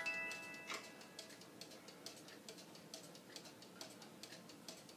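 Danbury Mint cuckoo clock's music box playing the last notes of its tune, ending about a second in. The clock's escapement then ticks steadily, about two and a half ticks a second.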